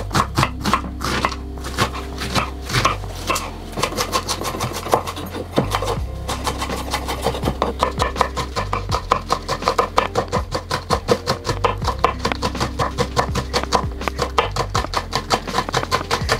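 Chef's knife chopping red onion, then green chillies, on a wooden cutting board: a quick run of sharp taps, several a second, with a short break about six seconds in. Background music with a steady bass line plays under the chopping.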